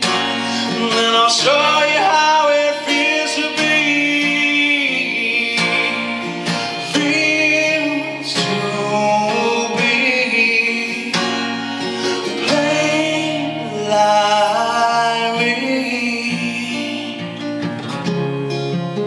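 Male voice singing over acoustic guitar, with gliding, held notes.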